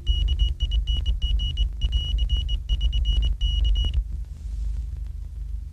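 Morse code on a wireless telegraph: a high tone keyed on and off in short and long beeps, stopping about four seconds in, over the steady low hum of an old film soundtrack.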